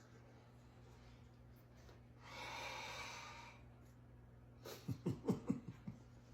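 A man huffs out one long breath through his mouth, then makes a quick run of about six short throaty hums, reacting to a mouthful of soup that is still too hot.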